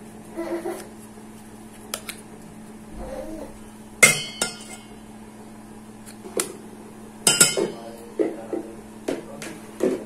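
Metal spoon and utensils clinking against a stainless steel mixing bowl: two loud ringing clinks, about four and about seven seconds in, with lighter knocks and taps between them.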